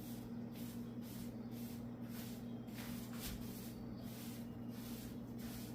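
Small applicator being wiped back and forth across a hardwood floor sample, spreading wet sealer along the grain: soft, repeated swishing strokes over a steady low hum.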